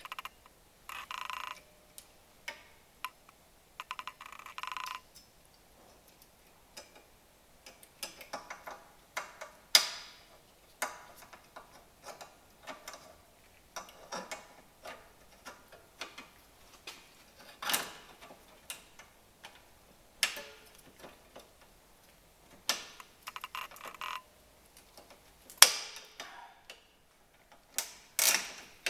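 Hand tools at work on a car's drum brake while its wheel cylinder is replaced. Short runs of rapid ratchet clicking come about a second in, around four seconds in and near the end, among scattered sharp metal clicks and taps.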